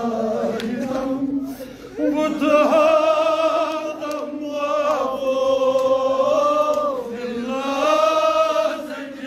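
A man chanting a Kashmiri noha, a mournful lament, in long drawn-out notes that waver and slide, with a short break for breath about two seconds in.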